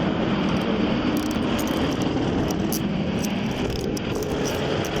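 Steady rumble of engines and road traffic, with faint small clicks over it.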